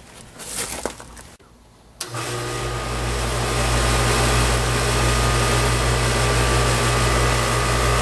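Air-conditioner condenser unit starting suddenly about two seconds in, as the newly fitted contactor closes: the compressor and condenser fan then run with a steady low hum and a rush of air.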